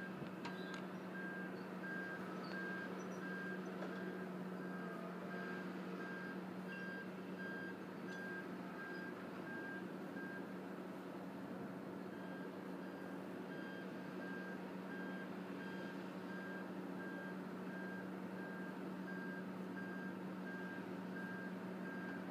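Backup alarm on heavy demolition machinery beeping steadily, breaking off for about a second near the middle, over the constant hum of a heavy machine's engine.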